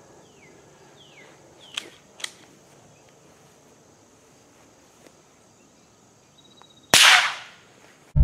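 A single shot from a .22 firearm about seven seconds in: one sharp crack that dies away over about half a second, the round striking a cinder block.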